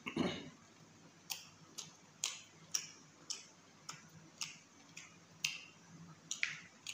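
Wet chewing smacks, evenly spaced about twice a second, from a mouthful of chicken curry and rice, after a louder, longer mouth sound right at the start.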